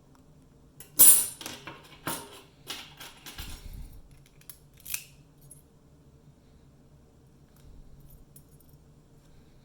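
ABUS 72/40 padlock being taken apart by hand: a run of sharp metallic clicks and rattles as small lock parts and tools knock together, loudest about a second in, then only faint handling.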